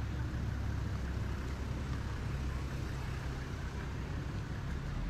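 Idling engine: a steady low hum.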